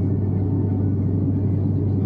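Turboprop airliner cabin noise in flight: a steady low drone and hum from the six-bladed propeller and its engine just outside the window, heard through the cabin wall.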